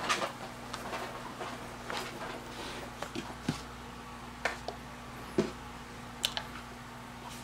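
Plastic packaging of a box of cherry tomatoes crinkling and clicking in irregular short bursts as a cat paws and noses at it, over a faint steady hum.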